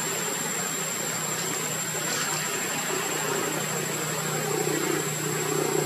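Steady background noise: an even hiss with a constant high-pitched whine and a low hum running under it, a little fuller in the middle tones near the end. No clear animal calls or knocks stand out.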